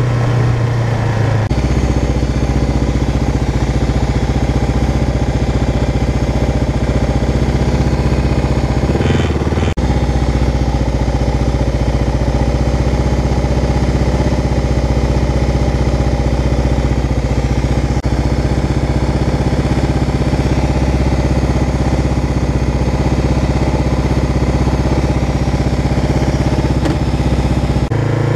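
Kawasaki KLR650's single-cylinder four-stroke engine running steadily under way. The note drops about a second and a half in, wavers briefly around nine seconds, and rises again near the end.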